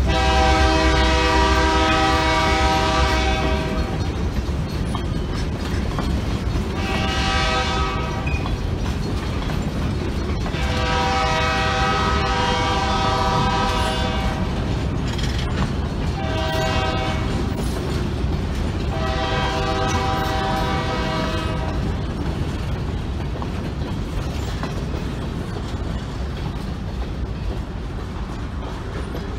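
Locomotive horn sounding five blasts, long and short in turn, with a train of covered hopper cars rolling past, its wheels rumbling and clicking over the rail joints.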